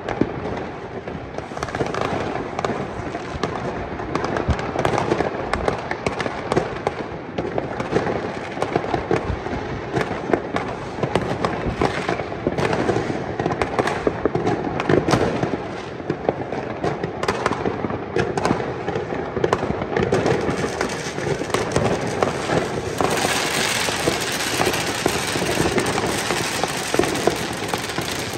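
Massed New Year's fireworks and firecrackers across a city: a continuous barrage of overlapping bangs, pops and crackles with no break. Near the end a hissing crackle grows stronger over the bangs.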